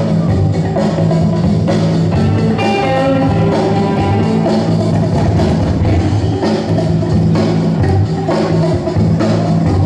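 Funk or rock break music with electric guitar, bass and drum kit playing steadily.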